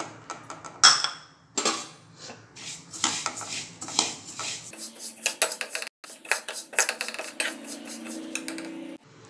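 Perforated steel ladle scraping and stirring cumin seeds in a dry aluminium kadai: irregular metal-on-metal scrapes and knocks with the seeds rattling against the pan as they are dry-roasted.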